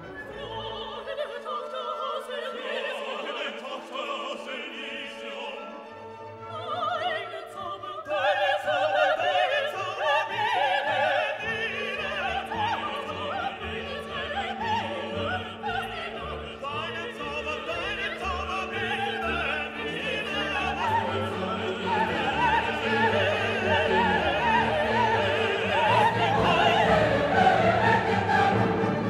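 Orchestral classical music with operatic singing. It grows fuller about eight seconds in, and deep sustained bass notes join near twelve seconds.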